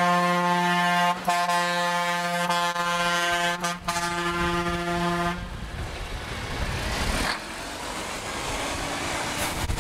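A vehicle horn in a passing tractor convoy, held as one long steady blast that breaks off briefly twice and stops about five seconds in. Tractor engines and traffic noise go on after it.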